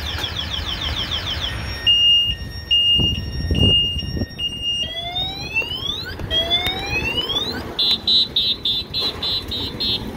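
Vehicle anti-theft alarm siren cycling through its tone patterns: a fast chirping warble, then a beeping two-tone, then two long rising whoops, then rapid beeps near the end.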